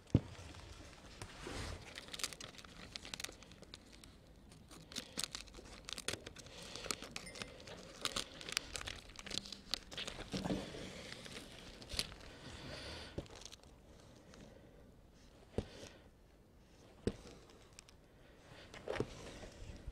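Clear plastic laminating film crinkling and rustling as it is handled, ironed onto an EPP foam wing and trimmed with scissors, with scattered sharp clicks and taps.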